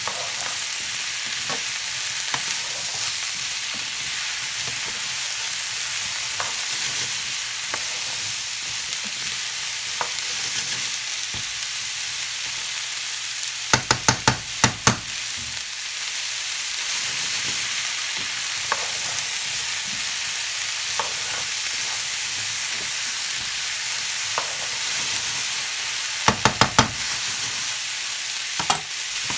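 Diced zucchini, onion and garlic sizzling in olive oil in a nonstick skillet as they are stirred with a spoon. Twice, about halfway through and again near the end, there is a quick run of sharp clicks as the spoon knocks against the pan.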